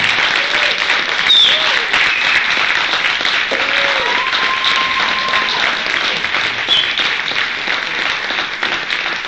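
Audience applause, steady and sustained, with a few voices heard faintly over the clapping.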